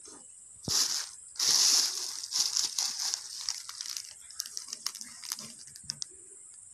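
Thin plastic shopping bag rustling and crinkling as it is handled, in irregular bursts, loudest about one and a half seconds in, then smaller crackles that die away about six seconds in.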